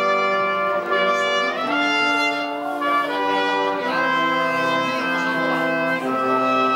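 Brass quartet led by two trumpets playing a slow piece in held chords that change every second or so.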